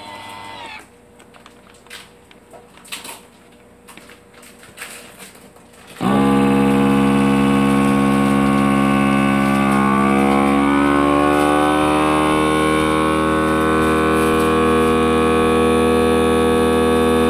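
A FoodSaver vacuum sealer's pump starts about six seconds in and runs as a loud, steady hum, drawing the air out of a bag of raw chicken. Its pitch shifts a few seconds after it starts as the vacuum builds. Before it starts there are light clicks as the bag is pushed into the machine.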